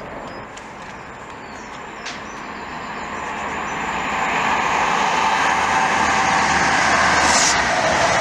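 A diesel High Speed Train (InterCity 125) with Mk3 coaches approaching and passing close by. Its engine hum and running noise grow steadily louder over several seconds, then hold loud as the coaches go past.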